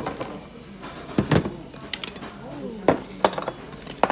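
Dishes clinking and knocking as a soup bowl on a metal tray and small side dishes are set down on a wooden table: several sharp clinks, the loudest about a second in and near three seconds.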